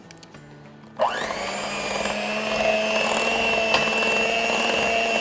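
Electric hand mixer switched on about a second in, its motor spinning up with a quick rising whine and then running steadily as the beaters whip cream cheese and condensed milk in a glass bowl.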